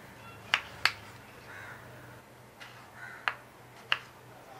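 Knife cutting tomatoes on a chopping board: five sharp, irregularly spaced knocks of the blade against the board, with faint slicing noise between them.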